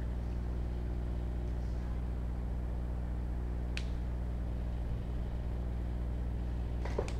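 Steady low electrical hum with a buzz. A single sharp click comes about four seconds in, and another brief noise comes near the end.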